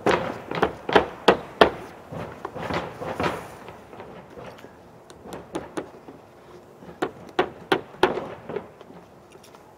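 Roofing hammers driving nails into a roof deck: a quick run of sharp strikes over the first three seconds or so, then slower, scattered strikes that are quieter.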